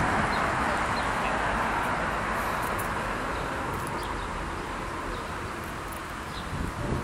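Outdoor background noise that slowly fades, with a few faint bird chirps and low rumble on the microphone.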